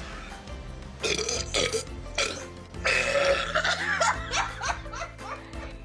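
A person letting out several loud burps after gulping carbonated soda: the failed end of a Sprite challenge. The burps begin about a second in and are loudest around three seconds in, over steady background music.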